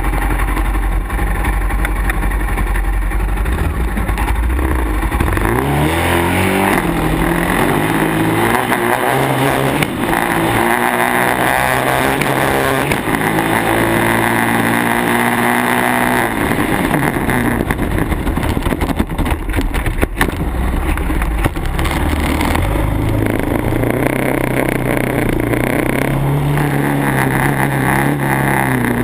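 Yamaha sport quad's engine accelerating hard through the gears on a sand drag run: the pitch climbs and drops back at each shift several times, then falls away as the throttle is let off. Heavy wind rumble on the microphone, and the engine pulls again at a steadier pitch near the end.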